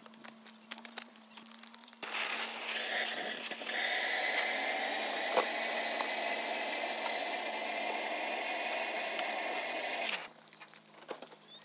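Handheld gas torch lit about two seconds in and hissing steadily as it blows flame into a wood stove's firebox to light the kindling, then shut off abruptly near the end.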